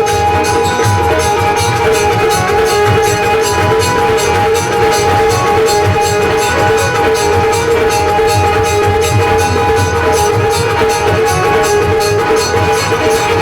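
Live Bhojpuri folk music without singing: sustained held notes over a drum beat and steady, rapid jingling percussion.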